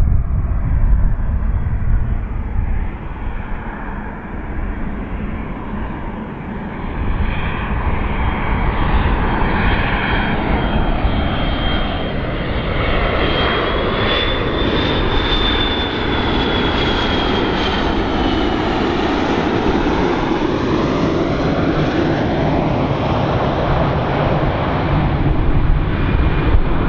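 McDonnell Douglas MD-82 on landing approach passing by, its two rear-mounted Pratt & Whitney JT8D turbofans giving a jet roar that grows louder a few seconds in. A high whine rises slightly in pitch as the aircraft comes nearest, around the middle, then falls as it moves away.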